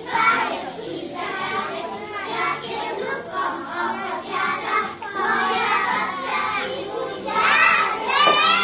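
A group of young children singing together. Near the end a louder, high voice glides up and down above the rest.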